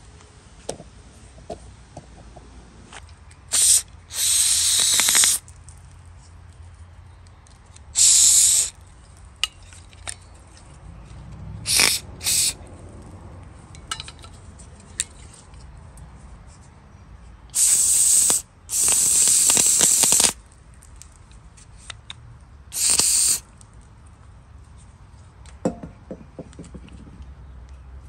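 An aerosol can of parts cleaner sprays in eight short bursts of hiss, the longest about a second and a half, into a mower's plastic safety switch to flush out the rust around its spring.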